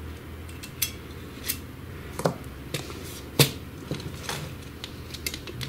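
Light clicks and clacks of small plastic and metal parts being handled as the heating lamp is worked loose from the fuser of a Samsung ML-1210 laser printer. There are about half a dozen scattered clicks, the loudest a little over three seconds in.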